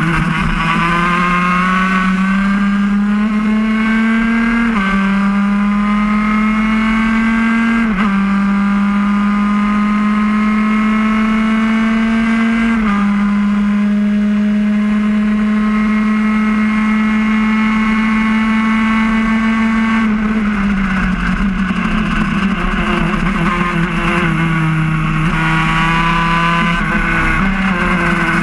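Racing kart's high-revving two-stroke engine heard on board at full throttle. Its pitch climbs and drops back sharply three times as it shifts up, then holds steady on a straight. Later it falls away under braking and climbs again near the end.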